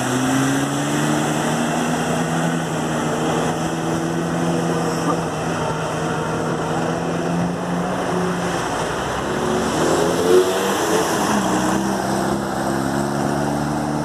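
Off-road vehicle engine running under load through shallow floodwater, with water splashing. The engine pitch climbs in the first second, dips and rises again about ten seconds in, and there is a brief louder knock or splash just after that.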